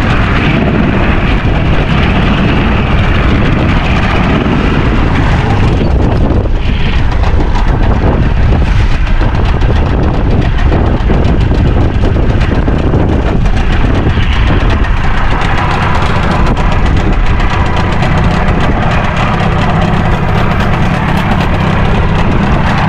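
Steady, loud rumble of a small fishing boat's outboard motor running, mixed with wind buffeting the microphone.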